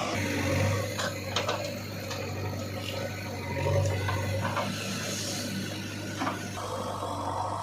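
An engine running steadily, with a few short knocks over it.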